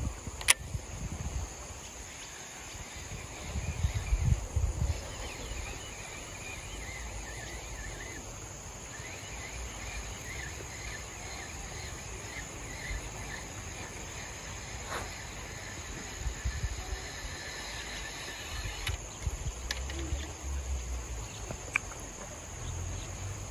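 Steady drone of insects, crickets or cicadas, with faint chirps over it and irregular low rumbles of handling or wind on the microphone; a single sharp click about half a second in.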